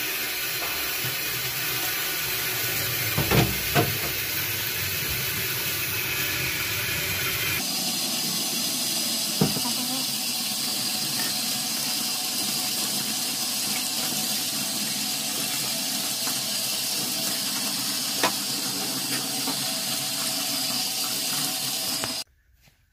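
Tap water running steadily into a utility sink while metal head studs are rinsed and scrubbed by hand with a rag, with a few light knocks. The water cuts off suddenly near the end.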